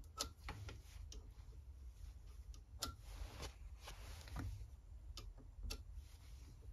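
Dial caliper jaw tips scratching rough layout lines into blued quarter-inch hex bar stock held in a lathe chuck that is turned by hand: a dozen or so faint, irregular ticks and short scrapes over a low hum.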